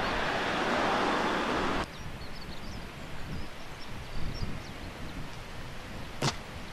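A steady rushing noise that cuts off abruptly about two seconds in, then quiet outdoor ambience with faint bird chirps and one sharp click near the end.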